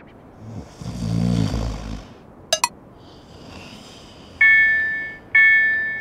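A cartoon snore in the first two seconds, then a short click. From about four and a half seconds a railroad crossing warning bell starts ringing, a struck ding about once a second, each fading away: the crossing is warning of an approaching train.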